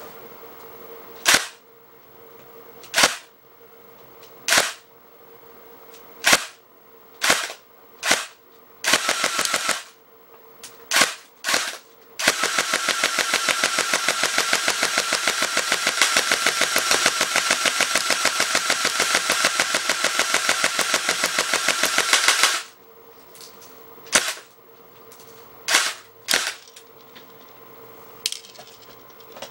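Airsoft gun firing plastic BBs into a gel target: several single shots a second or two apart, a short rapid string, then a continuous rapid-fire burst of about ten seconds, and a few more single shots near the end.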